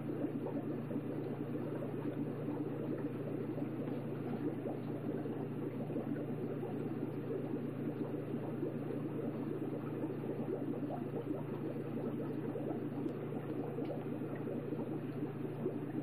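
Steady bubbling and burbling of aquarium water over a low, even hum.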